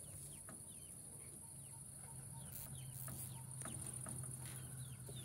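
Crickets chirping in a steady high trill, with chicks peeping in short falling notes and a few faint clicks as wire mesh is handled.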